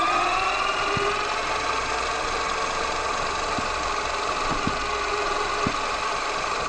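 Axial Yeti XL RC truck's brushless electric motor and drivetrain whining at a steady high pitch as it drives along. A few short knocks come from the truck rolling over bumps.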